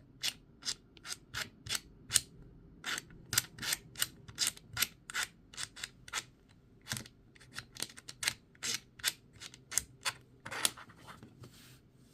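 Plastic blocks of a 3D-printed sliding-block puzzle clacking as they are slid and knocked against each other and the frame: an irregular run of sharp clicks, two or three a second, with a brief pause about two thirds of the way through.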